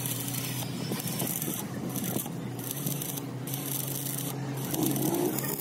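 Stick welding on the steel of an excavator bucket: the arc crackles and hisses in runs of about a second, with short breaks between them, over a steady low electrical hum.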